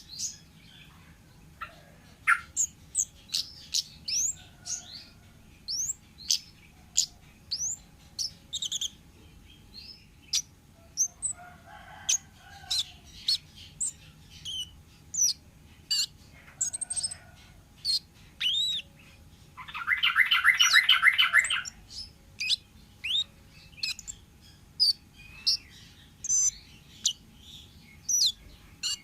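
Wild kemade bird calling: a string of short, sharp chirps and whistled slurs, about one or two a second, broken by a harsh buzzy chatter about twenty seconds in that lasts about two seconds.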